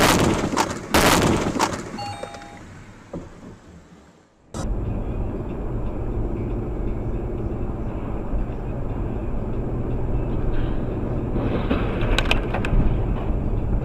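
A sudden loud crash, with a second impact about a second later and then fading noise: a car's collision with an oncoming truck, caught by its dashcam. About four and a half seconds in it cuts to steady engine and road noise inside a car driving along, with a few sharp clicks near the end.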